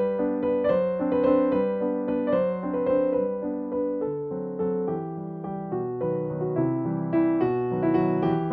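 Background piano music: a gentle melody of plucked-sounding keyboard notes.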